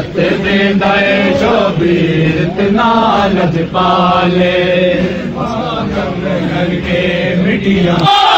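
Men's voices chanting a noha, the Shia lament for the martyrs of Karbala, in a loud group recitation, over a held low note that stops just before the end.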